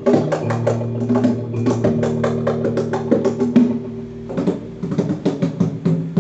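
Live hand drum played with bare hands in quick, uneven strokes, over sustained low pitched notes that change every second or two.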